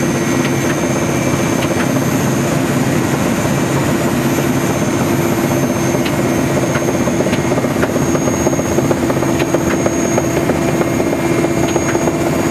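Steady, loud machine drone with a constant hum, unchanging throughout, typical of engine or rotor noise.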